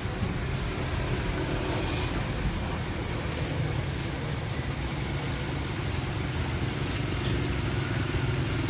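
Steady rain noise with a low, steady rumble underneath and a faint click about two seconds in.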